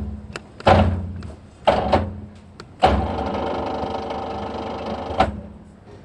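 Electric rebar bending machine: its motor and gearbox start with a clunk and run briefly twice, then run steadily for about two and a half seconds and stop with a clunk.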